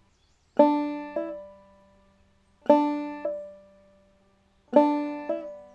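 Clawhammer banjo: three times, the open first string is struck and then hammered on to the second fret, giving a two-note pair each time with the second note softer and a step higher.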